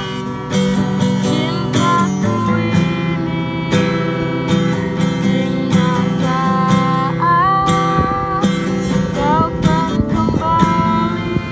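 A girl singing while strumming an acoustic guitar, her voice sliding into long held notes.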